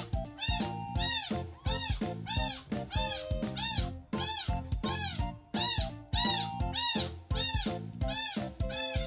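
Tiny kitten mewing over and over, high arching cries about one and a half a second, over background music.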